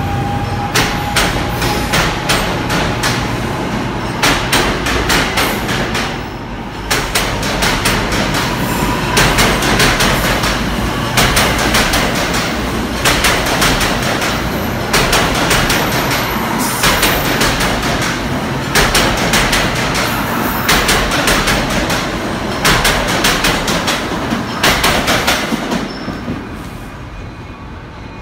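A GE Arrow III electric multiple-unit train rolling past. Its wheels click over the rail joints in clusters about every two seconds, over a steady rumble, and a faint whine rises slightly in pitch. The sound fades near the end as the train moves away.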